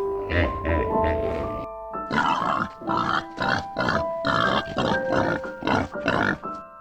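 A pig grunting in a run of short grunts over background music, with a brief break about two seconds in.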